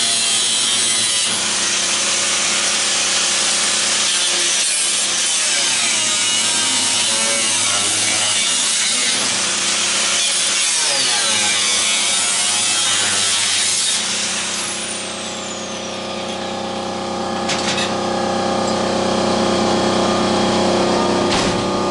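A power tool runs hard against the metal fan housing, its pitch wavering under load, then is let off about two-thirds of the way through and winds down with a falling whine. A steady hum and a couple of sharp clicks follow.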